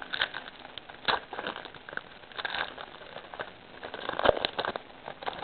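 Baseball card pack wrapper being torn open and crinkled, a run of irregular crackles and rustles, loudest about four seconds in.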